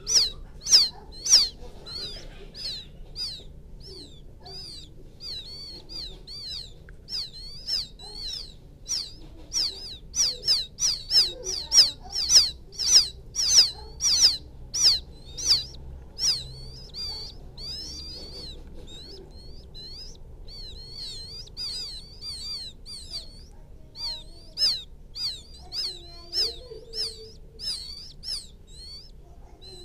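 Quail chicks peeping: a long series of short, high chirps, several a second, loudest and most rapid about a third to halfway through. This is the chicks' contact call to their mother, used as a lure call for trapping quail.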